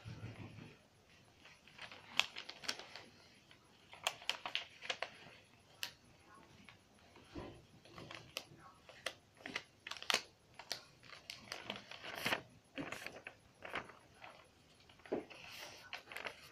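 A sheet of paper being folded and creased by hand: irregular rustling and crinkling with many small sharp crackles.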